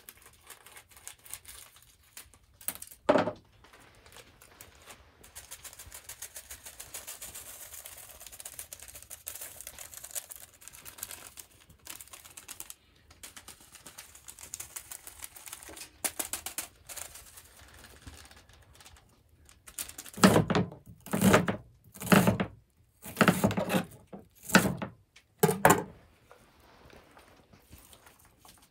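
Plastic spice pouch being handled and shaken over a cast iron Dutch oven: crinkling and a fine, rapid rattle of seasoning for several seconds. Later a run of about six loud knocks.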